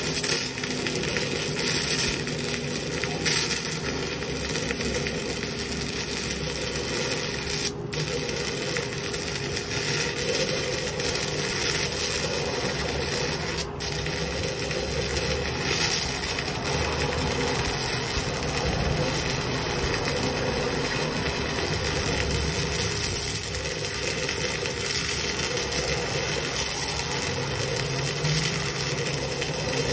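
Stick-welding arc of a 6011 electrode burning steadily and loudly, crackling and hissing as the rod is whipped out and back along the joint.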